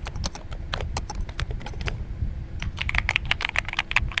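Typing on an EpoMaker DynaTab 75 mechanical keyboard fitted with silent switches: irregular key clicks that quicken into a fast run about two-thirds of the way in.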